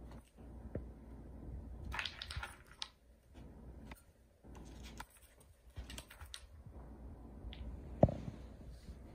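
A kitten's claws and paws scraping and tapping on a wooden track toy at the foot of a sisal scratching post, with a cluster of scratchy scrabbling about two seconds in and small clicks here and there. About eight seconds in there is a single sharp knock as the kitten tumbles against the wooden base.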